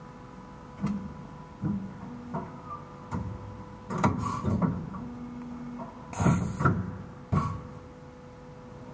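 Stama MC 230/H CNC horizontal machining centre working through its cycle: a steady machine hum with a series of mechanical clunks and short motor whirs, and a brief loud burst of noise a little after six seconds in.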